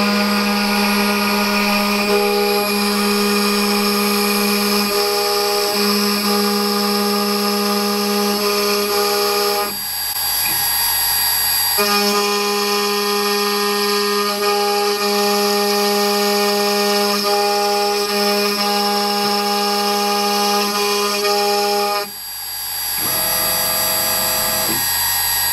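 CNC router spindle whining steadily at a constant pitch while a V-bit engraves letters into a wooden board. The sound drops out briefly twice, about ten seconds in and again near the end.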